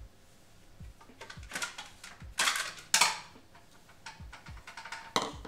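Kitchen dishes clattering as they are handled, in several short bursts of clinks and knocks, the sharpest about three seconds in.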